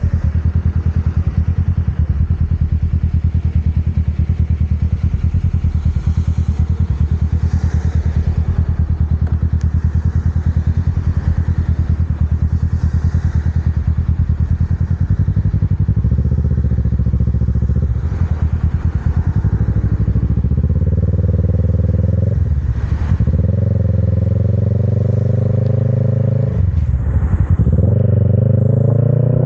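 Motorcycle engine running steadily at low revs in slow traffic, then pulling away with its pitch climbing. About two-thirds of the way through and again near the end the pitch drops sharply and rises again, as at gear changes.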